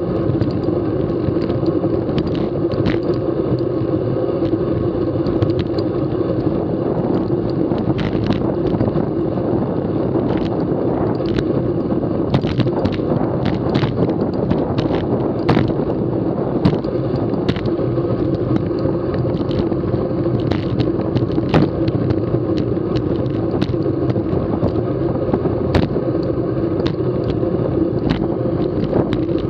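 Road bicycle riding at racing speed: steady wind rush over a bike-mounted camera microphone mixed with tyre noise on concrete road, with frequent small ticks and rattles from the bike.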